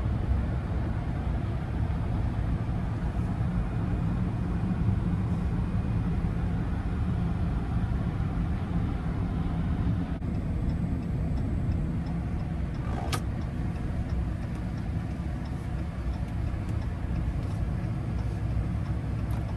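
Steady low rumble of a Hemi V8 Ram pickup's engine and its tyres on a wet road, heard inside the cab while driving. Faint, evenly spaced ticking shows in the second half, and a brief sharp rising sound occurs about thirteen seconds in.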